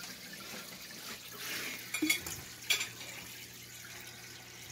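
Water pouring and splashing into an aquarium as it is filled, with a couple of sharp knocks about two seconds in and again a little later.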